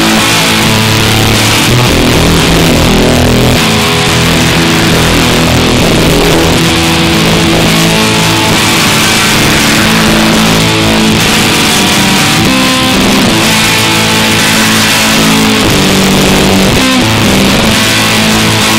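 Electric guitar played through a Line 6 Spider IV 15 amplifier, with a heavy distorted tone. Held notes and chords change every second or so.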